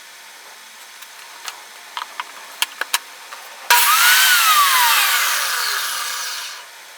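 A few light clicks, then a DeWalt table saw starting suddenly about halfway through, its whine rising briefly before it falls steadily as the blade spins down and fades out.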